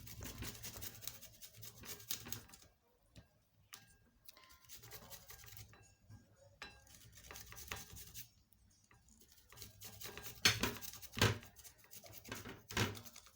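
Fresh ginger root being grated on a hand grater: irregular rasping strokes with short pauses, loudest near the end.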